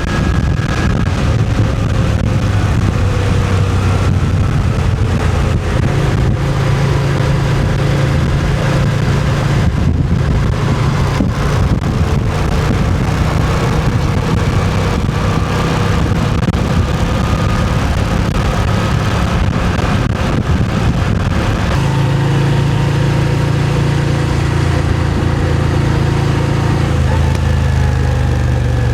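Moto Guzzi V7's air-cooled transverse V-twin engine running steadily while the bike is ridden, with road and wind noise. The engine note steps up about six seconds in and again near twenty-two seconds, as throttle and gear change.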